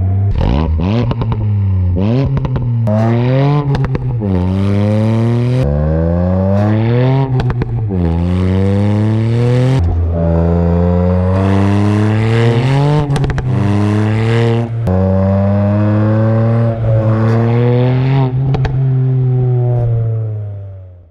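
Ford Fiesta ST Mk8's turbocharged 1.5-litre three-cylinder engine, breathing through a Milltek aftermarket exhaust, pulling hard through the gears. The pitch climbs in each gear and drops back at each upshift, with short sharp pops at several of the shifts, and the sound fades out at the very end.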